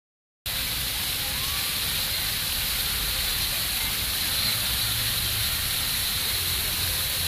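Jets of a dancing plaza fountain spraying and splashing as a steady hiss of water, starting about half a second in.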